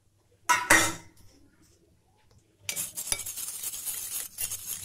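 Two sharp metallic knocks against a steel bowl, then, from nearly three seconds in, continuous scraping and clinking as a utensil stirs gram flour into water in the bowl to dissolve it without lumps.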